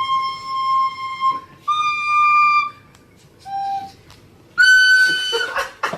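Four separate held notes on a flute-like wind instrument, each steady in pitch. The third note is lower and shorter than the others, and the last is the highest. A short noisy jumble follows near the end.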